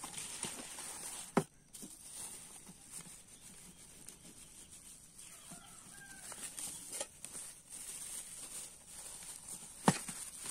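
Nested metal camping pots being unpacked from plastic bags: plastic crinkling and small clatter, with two sharp knocks of the pots, about a second in and near the end.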